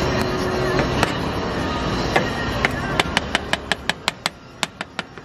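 Metal spatula tapping against a plastic cutting board as fish-cake paste is shaped around a skewer. A few scattered taps come first, then a quick even run of about five sharp taps a second over the last two seconds, over a steady street hubbub.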